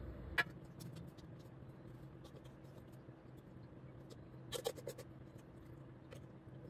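Kitchenware being handled: a sharp click about half a second in, a quick cluster of knocks and clinks around four and a half seconds, and faint scattered ticks, over a low steady hum.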